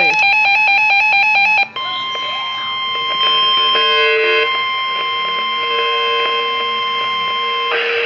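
Reecom NOAA weather alert radio sounding a tornado warning alert. First, for about a second and a half, it gives a fast repeating electronic beep pattern. Then comes the steady single-pitch weather radio warning alarm tone, which holds for about six seconds and cuts off just before the end.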